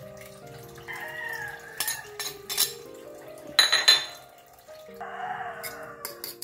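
Metal utensil clinking sharply against a ceramic bowl in a quick cluster about three and a half seconds in, then a fork starting to tap in the bowl near the end, over background music.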